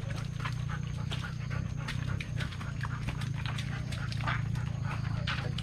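A dog panting in quick, irregular breaths over a steady low hum.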